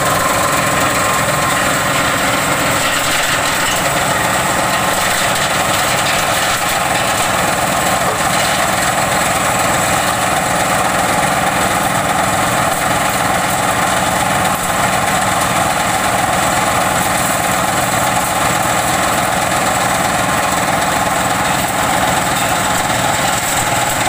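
A 12-blade organic-waste chopper runs steadily, driven by a single-cylinder diesel engine, shredding organic waste for compost. The running is loud and even, with a constant whine and no pauses.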